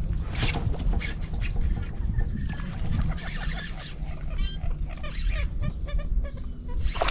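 Steady low wind rumble on the microphone, with scattered clicks and a short bird call about halfway through.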